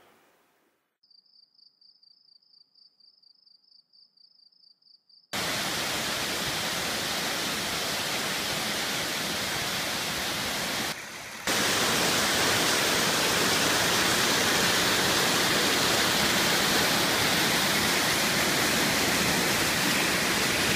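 Water rushing over a rocky waterfall cascade, a loud steady rush that starts suddenly about five seconds in and dips briefly near eleven seconds. Before it, near silence with a faint high-pitched pulsing trill.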